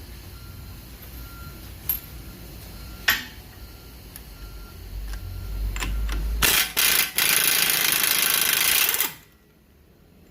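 Impact wrench hammering the front axle hub nut off through a 1.25-inch socket. It gives a few short bursts, then runs for about two and a half seconds and stops abruptly. Two sharp metal clicks come before it.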